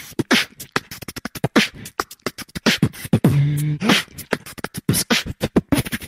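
Beatbox-style percussion music: a fast run of clicks and hits with a held low hummed bass note about three seconds in, the rhythm pattern repeating.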